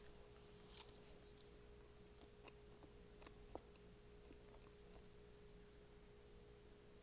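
Near silence: room tone with one faint, steady high hum, and a few faint soft clicks and crackles in the first second or two.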